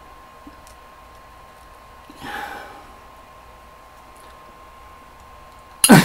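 Quiet room tone with a faint steady whine. A man breathes out once, softly, about two seconds in, and near the end his voice breaks out loudly into the start of a laugh.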